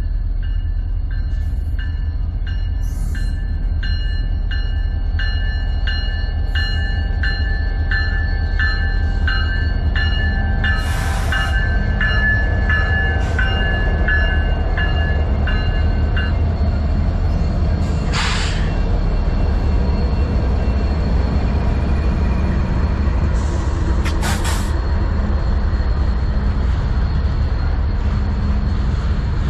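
Freight train with diesel locomotives rolling past at close range, a steady heavy rumble from the engines and cars. A bell rings evenly about one and a half times a second until just past the middle, and there are three short bursts of hiss.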